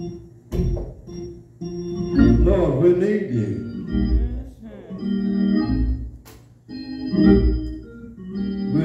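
Church organ playing slow, held chords that swell and fade, with a brief lull about six seconds in.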